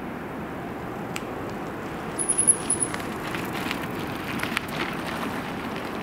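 Bicycle passing close by on gravel: tyres crunching and a run of clicks and rattles, with a brief high squeak about two seconds in, over a steady rumble of distant motorway traffic.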